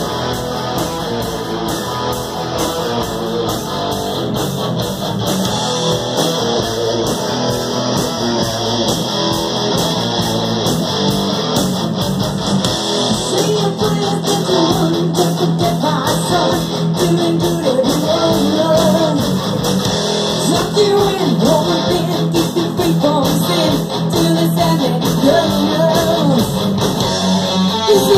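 Live rock band playing: electric guitars over drums with a steady beat. A woman's lead vocal comes in about halfway through.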